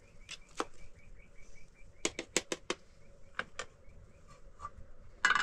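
Metal ladle clinking against a metal cooking pot while spaghetti is stirred and tossed: a string of sharp clinks, a quick run of five in the middle, and a louder clatter just before the end. A faint, rapid chirping runs underneath for the first few seconds.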